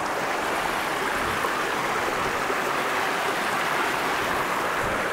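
Shallow rocky river rushing steadily over stones and small rapids, heard up close.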